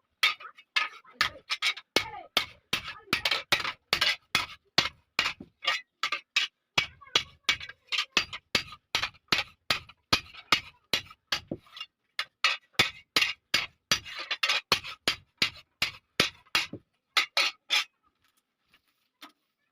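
Hand hammer striking iron on an anvil, a quick run of sharp blows about three a second that stops near the end, as a hasuwa blade is forged.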